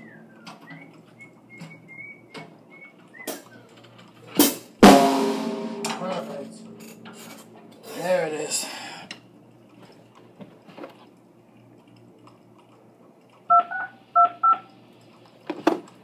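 Knocks and clatter of someone moving about at a drum kit, with one loud drum hit about five seconds in that rings on for over a second. Three short beeps come near the end.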